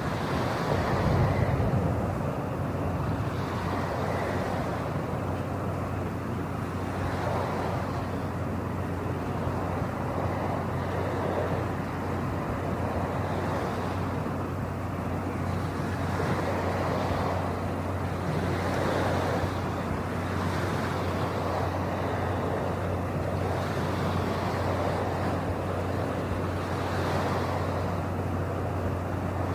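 Harbour ambience: a steady low engine hum under a rushing noise that swells and fades every couple of seconds.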